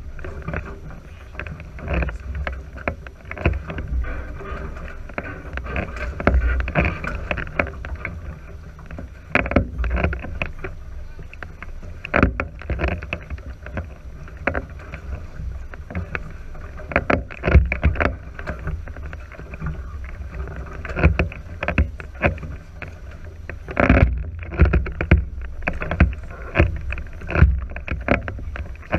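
Water washing along the hulls of a NACRA 5.0 catamaran under sail, with wind rumbling on the microphone and irregular sharp knocks and splashes throughout.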